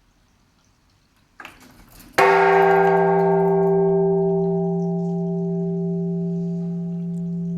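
Large Japanese temple bell (tsurigane) struck once, about two seconds in, after a short rough noise; it rings on with a low hum that holds steady while the higher tones slowly die away.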